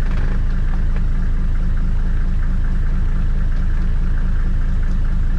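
Safari vehicle's engine idling with a steady, even low throb.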